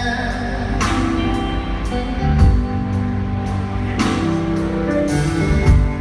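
Live band music: a male voice holds the last sung word at the start, then the band plays on between vocal lines. Electric guitar and drums carry it, with two cymbal crashes, about a second in and again about four seconds in.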